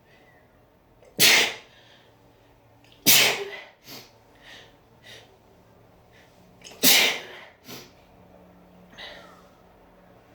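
A person sneezing three times in a fit, a few seconds apart, with quieter quick breaths between the sneezes; the sneezing comes from a head cold.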